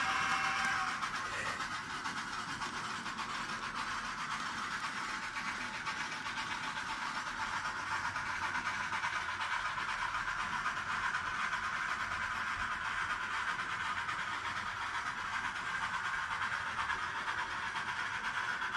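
N scale model excursion train running on the layout track: a steady hiss and whirr of the moving train. A held whistle-like chord of several tones cuts off about a second in.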